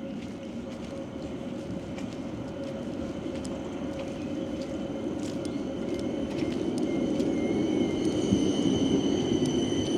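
A vehicle rumbling closer and growing steadily louder. Thin high whining tones come in about halfway through and waver.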